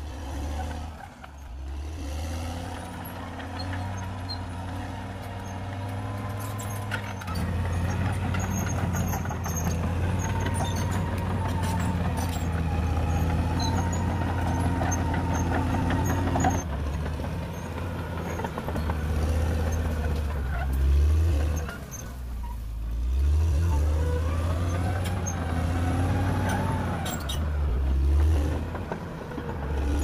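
CAT D6R XL bulldozer's diesel engine working a blade load, its pitch and loudness rising and falling as the load changes, with a few short knocks.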